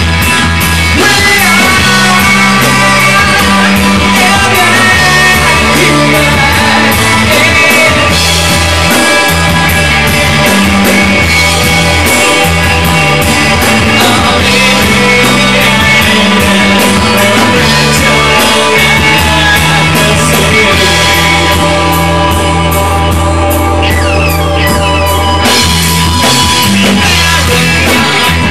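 Rock band playing live: electric guitar, bass guitar and drum kit with a singer, a steady driving beat throughout. The band thins out for a few seconds about three-quarters of the way through, then comes back in full.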